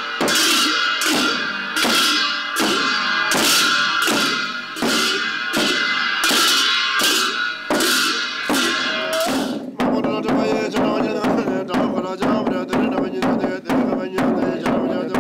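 Ritual frame drum (nga) and large bronze cymbals played together in a steady beat, about two strokes a second, each with a long metallic ring. About ten seconds in, the beat turns faster and denser, about three strokes a second, with less ringing.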